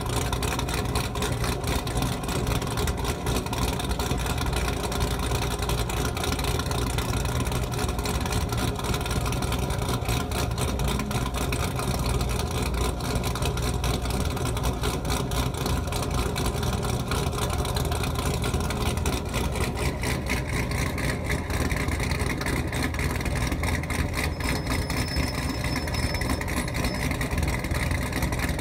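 C7 Chevrolet Corvette's 6.2-litre V8 idling steadily through its quad centre exhaust.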